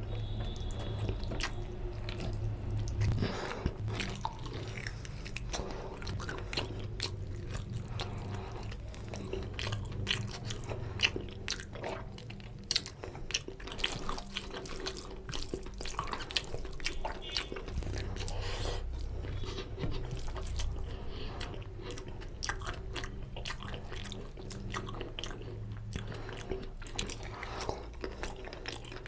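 Close-miked mouth sounds of a man eating oily mutton curry and rice with his hand: chewing, with many short wet clicks and squelches of the rice and gravy, over a low steady hum.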